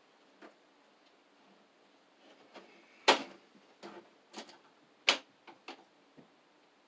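Sharp clicks and knocks from hand work inside an electrical breaker panel, with two loud ones about three and five seconds in and lighter ticks scattered between.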